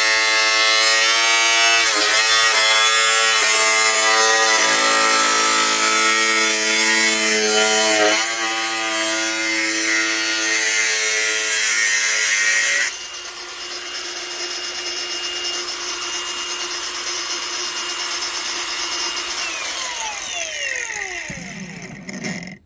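Electric grinder running at full speed, cutting into a panel with a high whine that dips briefly a few times under load. Near the end it is switched off and winds down with a falling whine.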